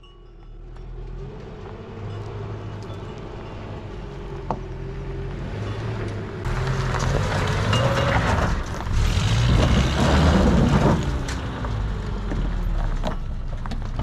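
A motor vehicle engine, growing louder and rising in pitch as it approaches. It is loudest about ten seconds in, then its pitch falls away as it passes.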